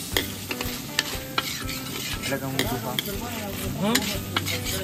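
Metal ladle stirring chicken in thick gravy in a steel karahi over a gas flame, the food sizzling, with sharp clicks and scrapes each time the ladle knocks against the pan, roughly once a second.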